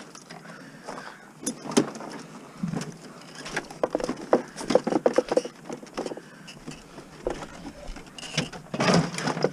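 Irregular clatter and knocking of scrap items being handled and moved, thickest in the middle, with a louder burst of knocks near the end.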